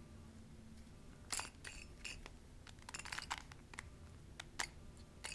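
Plastic Rubik's Cube layers being twisted by hand: scattered faint clicks and clacks, with a quick run of them about three seconds in.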